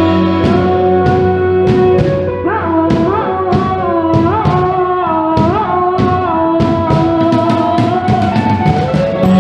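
Band music: a steady beat of drum hits about twice a second under a held melody that slides up into several of its notes.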